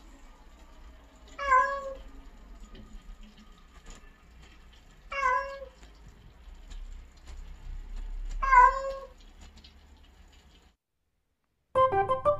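Domestic cat meowing three times, a few seconds apart, each meow short and bending down in pitch at the end. Light background music with piano-like notes comes in near the end.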